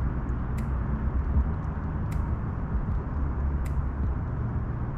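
Steady low outdoor rumble, with a short sharp click about every second and a half.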